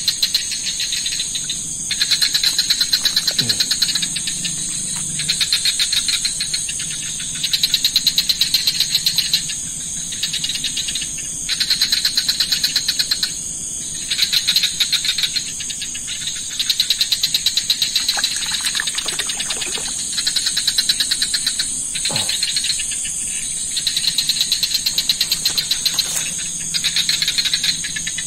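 Chorus of calling insects: rapid, finely pulsed trills in bouts of one to two seconds, repeated over and over, over a steady high-pitched buzz.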